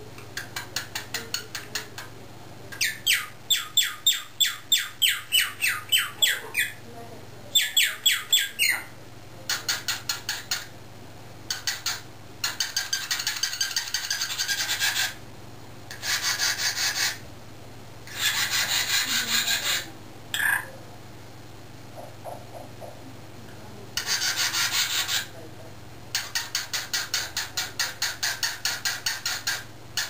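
Runs of rhythmic rasping scrapes, about four strokes a second, stopping and starting with short pauses between runs.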